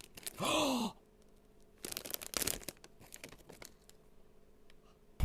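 A short wordless vocal sound, pitch rising then falling, followed by sharp crackles and rustles of a blind-box package being opened.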